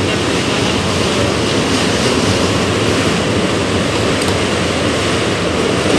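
Steady loud rushing background noise, with a faint click about four seconds in.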